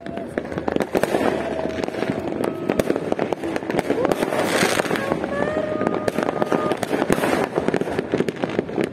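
Fireworks going off: many firecrackers and shells popping and crackling in quick, dense succession, with no let-up.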